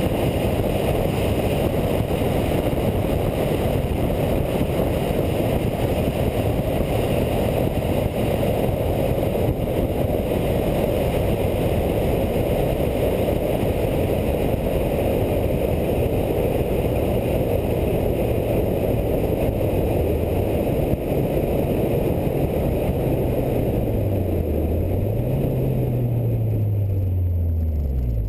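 Steady rush of wind and road noise from a Toyota Celica GT-Four ST205 driving at speed, picked up by a camera mounted on its roof. In the last few seconds the note of its 3S-GTE turbo four-cylinder engine drops and rises again as the car slows.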